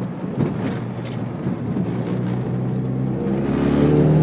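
Supercharged 2.4-litre Pontiac Sunfire engine heard from inside the cabin. It runs under light load at first, then pulls harder about three seconds in, its pitch rising and its level growing as the car accelerates.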